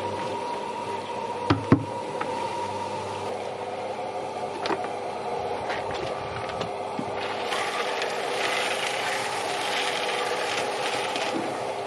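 A steady mechanical hum with two sharp knocks about a second and a half in. From about seven and a half seconds a rough rattling, scraping noise joins it.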